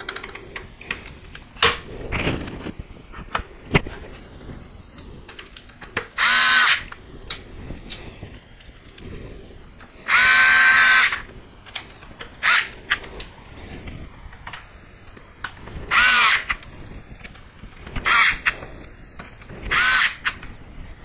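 Small cordless electric screwdriver driving screws in six short whirring bursts, the longest about a second. Between the bursts there are scattered clicks and knocks of metal parts being handled.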